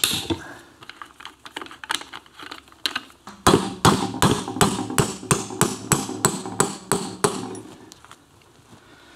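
Small hammer striking a pin punch held against an Aermacchi 350's aluminium crankcase: a steady run of about a dozen metal-on-metal taps, roughly three a second, starting about three seconds in. Before the taps, light clinks of hand tools.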